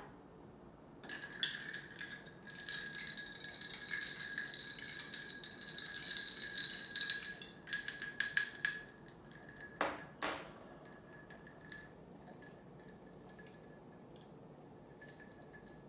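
Ice cubes clinking and rattling in a glass of a creamy cocktail for about eight seconds, the glass ringing with a steady high tone as it is stirred or swirled. A single knock follows about ten seconds in.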